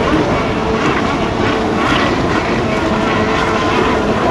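Racing jet skis running at high revs out on the water: a steady engine drone over a dense rushing noise.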